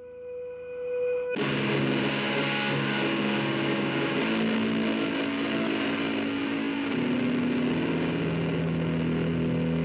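Soundtrack music: a single held tone, then about a second and a half in a heavily distorted guitar comes in with sustained chords that change every few seconds.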